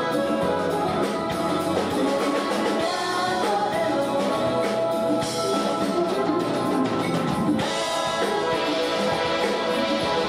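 A live band playing a Japanese city pop song: female lead and backing vocals over drum kit, percussion, bass, guitar and keyboards.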